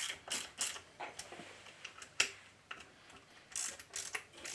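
Sparse light clicks and ticks of a small hand tool loosening the head-plate screws on a small air compressor pump, with one sharper click about two seconds in.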